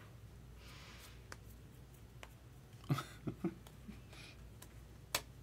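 Quiet room with a few light clicks and knocks: a soft brushing sound about a second in, a single click, a short cluster of knocks around the middle, and another click near the end.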